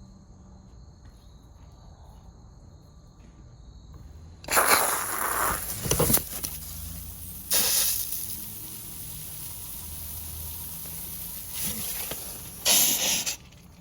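Water under pressure hissing and spraying out of a leaking garden-hose repair coupling whose rubber seal isn't sealing. It starts suddenly about four seconds in, surges louder a few times and stops abruptly near the end. Faint insects chirp before it starts.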